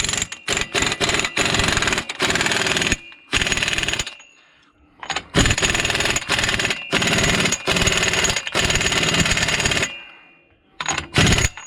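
Ingersoll Rand impact wrench hammering a truck's front axle nut on through a socket. It goes in short bursts through the first few seconds, then a brief burst, then a long run of about five seconds, with a last short burst near the end.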